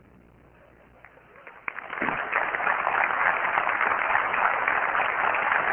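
Audience applauding: a few scattered claps, then full applause from about two seconds in that holds steady. It is applause after a product reveal, which the presenter calls much quieter than the applause at the launch.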